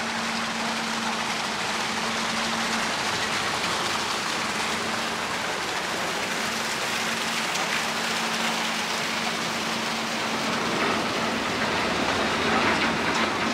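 Steady rush of water splashing from a lake passenger ship's hull outlets and along its side as it comes alongside a pier, over a low steady hum from the ship.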